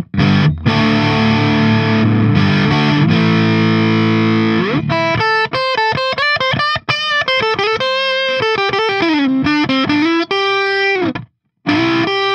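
Hardluck Kings Bombshell Strat-style electric guitar on its neck-and-middle pickup setting, through an overdriven crunch tone. Strummed chords ring for about four seconds, then a slide up leads into a fast single-note lead run with string bends. The run breaks off briefly near the end before a chord comes back in.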